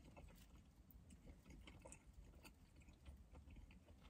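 Faint chewing: small wet mouth clicks scattered irregularly while a mouthful of food is eaten.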